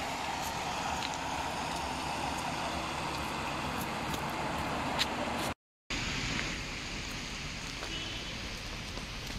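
Steady outdoor background noise with a few faint clicks. It drops out completely for a moment a little past halfway and is quieter after the gap.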